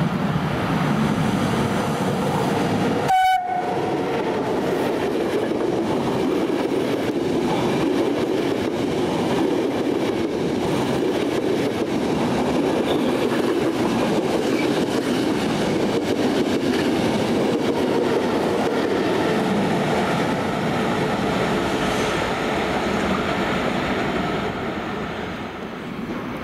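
Electric passenger train passing close along a station platform: a steady rumble and clatter of Intercity coaches on the rails. A short horn note sounds about three seconds in.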